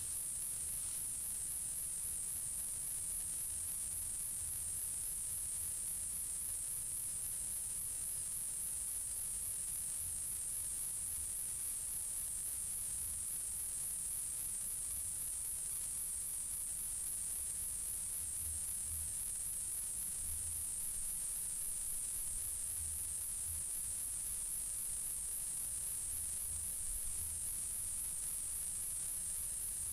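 Continuous high-pitched insect chorus, cicadas or crickets, droning evenly with a steady fast pulsing and no break.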